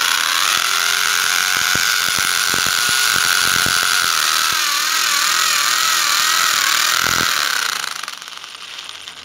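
Bosch electric drill with a new carbide-tipped masonry bit boring into hard ceramic tile cladding on a wall: the motor runs steadily with a high whine, its pitch wavering from about four seconds in, then it winds down near the end.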